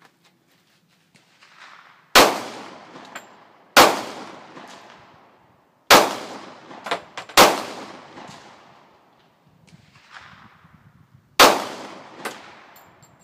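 Handgun fired five times at uneven intervals, each shot sharp and loud with a long echoing tail.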